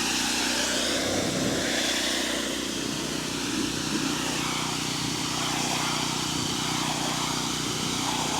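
Pressure washer engine running steadily, with the hiss of its water spray rinsing the soft-wash cleaner off a vinyl fence.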